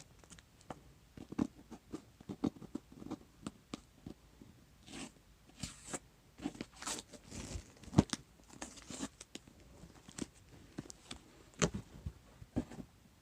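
Paper and plastic packaging rustling and crinkling in irregular short bursts as a box of comics is unpacked by hand. There are sharper knocks about eight seconds in and again near the end.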